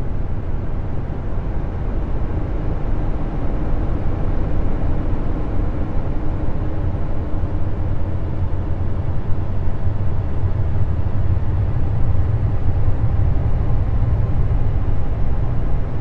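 Sonified space radio emissions presented as the sound of Jupiter's moon Callisto, radio waves converted into audible sound: a steady, loud, deep rumbling drone with an even hiss above it and a faint steady hum in the middle.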